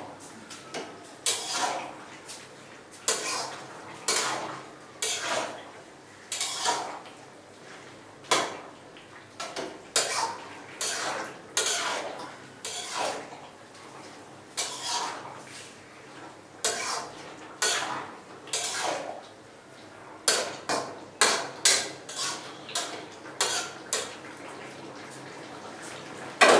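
A spatula scraping and stirring vegetables around a metal wok, in short repeated strokes of about one a second that come quicker near the end.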